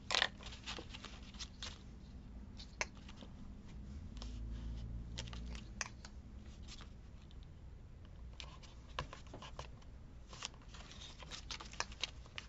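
Paper pieces being handled and set down on a craft table: light rustling with scattered small taps and clicks.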